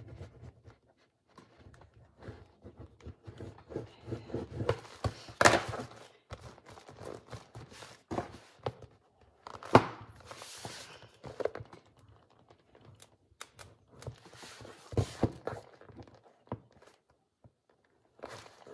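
A burnishing tool rubbing and pressing paper down into the spine of a handmade book, with the book knocked and shifted on a tabletop: irregular thunks mixed with short scraping rubs.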